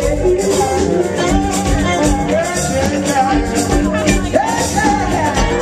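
A live band plays electric guitars, bass and drums. Gliding slide notes from a lap steel guitar stand out, with one rising slide about four seconds in.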